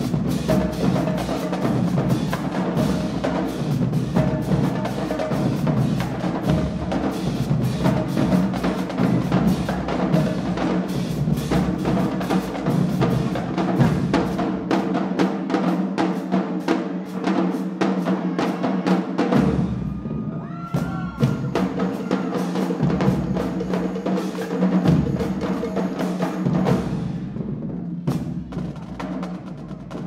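Marching band drumline playing: snare drums, tenor drums and bass drums with hand cymbals, struck in dense, rapid patterns. The crisp high strokes drop away in the last few seconds, leaving softer playing.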